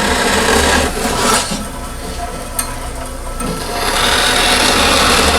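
Vertical bandsaw cutting a rough circle out of a Delrin plastic block, the blade rasping steadily through the material. The cutting eases off for about two seconds in the middle, then picks up again at full strength.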